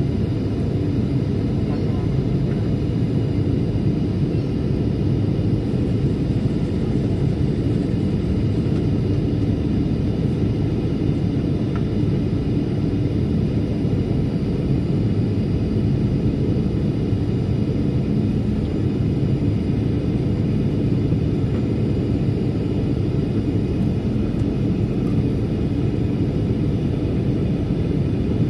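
Steady cabin noise of a Boeing 737-800 in flight: a constant low rumble of engines and airflow, with no changes or bumps.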